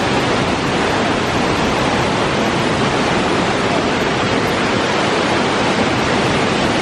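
Water cascading down the stepped stone terraces of a large outdoor fountain: a loud, steady rush of falling and splashing water.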